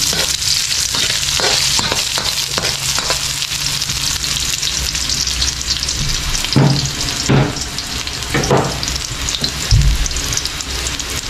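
Garlic and chopped onion sizzling in hot oil in a metal wok, being sautéed. A metal spatula scrapes and knocks against the pan a few times in the second half.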